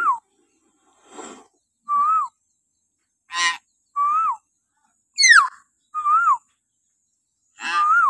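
Hill myna calling shrilly. A short whistled call that rises and then drops comes about every two seconds, mixed with harsher, buzzy shrieks and one sharp, falling whistle a little after the middle.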